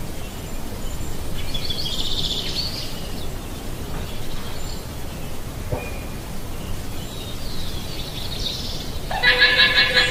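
Llama calls over steady background noise: a faint high call about two seconds in, another faint one near eight seconds, then a loud high-pitched, steady call near the end.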